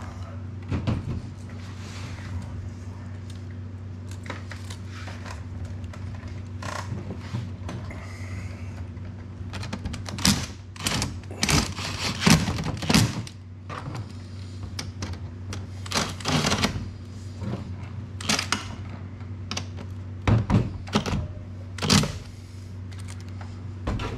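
Cordless driver fastening the screws of the steel bar under a Honda EU3000i generator's plastic case, in several short runs, mixed with knocks and clatter as the case is tipped and handled. A steady low hum runs underneath.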